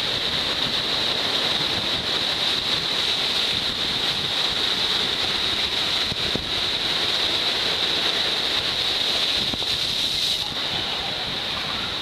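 Rough sea surf breaking over a rocky shore and washing across a flat rock shelf: a continuous rush of churning water, easing slightly near the end, under a steady high hiss.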